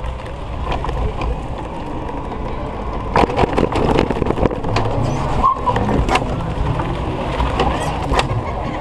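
Golf cart driving over pavement, heard from on board: steady rumble and rattle of the moving cart, with a few sharp knocks as it jolts along.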